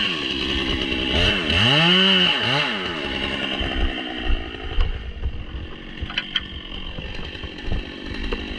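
Chainsaw revving up and down several times, then running steadier and lower, as if working in the felling cut. A few sharp ticks or cracks come from about four seconds in.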